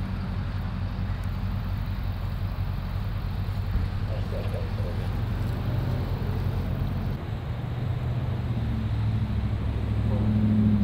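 Steady low hum of a vehicle engine running, with faint voices now and then.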